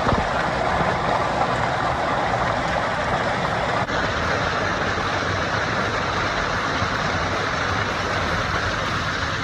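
Waterfall rushing, a loud steady roar of falling water cascading into rock pools, with a brief break about four seconds in.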